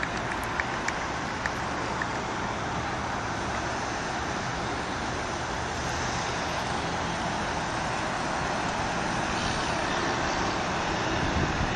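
Steady road traffic noise, an even wash of sound, with a few faint sharp clicks in the first second and a half and a slight swell near the end.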